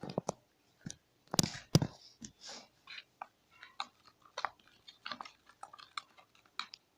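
Sticky homemade slime being squeezed and worked by hand, giving irregular wet clicks and crackles, two louder ones about a second and a half in.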